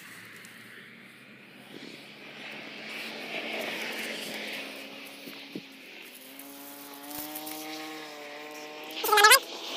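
An engine drones steadily, coming through more plainly from about six seconds in. Near the end a brief loud sound with a wavering pitch cuts across it.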